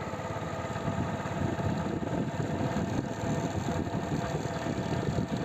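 Hero Splendor Plus motorcycle's single-cylinder engine running steadily with a rapid even pulse, a little louder after about a second and a half.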